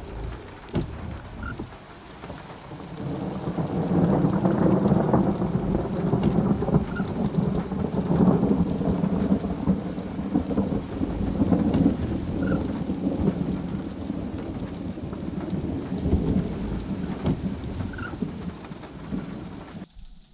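A long rolling rumble of thunder that swells over the first few seconds, stays loud for several seconds, then slowly dies away and is cut off just before the end.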